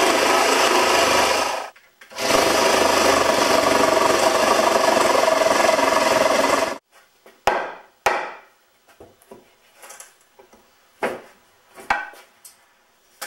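A cordless power tool working into a wooden 2x4 stud in two long runs with a short pause between, cutting off suddenly about two-thirds of the way in. After it come scattered short knocks and clunks of lumber being handled.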